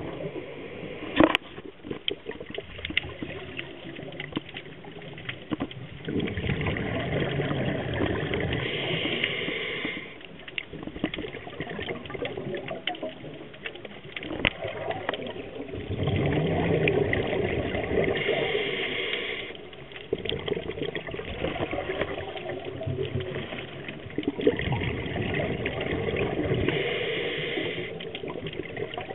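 Underwater bubbling and gurgling from a scuba diver's regulator, swelling into three long breaths about ten seconds apart. A single sharp click sounds about a second in.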